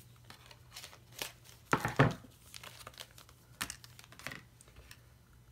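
Clear plastic packaging crinkling and rustling as small planner items are handled, with scattered light clicks and a louder knock about two seconds in.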